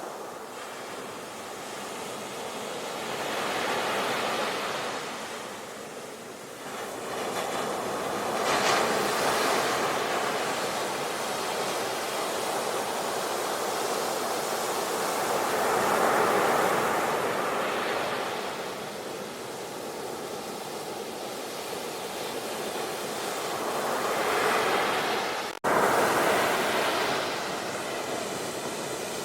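Ocean waves breaking and washing ashore, a steady rush of surf that swells and ebbs with each wave, several surges in a row. Near the end the sound cuts out for an instant and comes straight back.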